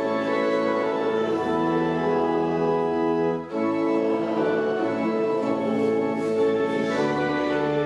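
Church organ playing slow, sustained chords with deep pedal bass notes, changing chord every couple of seconds with a brief break about three and a half seconds in.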